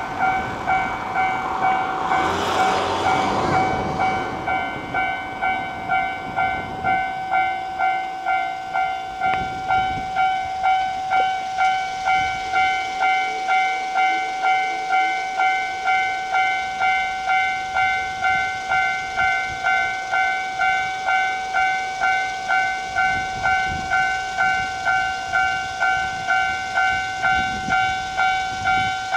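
Level crossing warning bell ringing in an even, repeating ding-ding beat. A loud rushing noise sounds over it for the first few seconds, then fades.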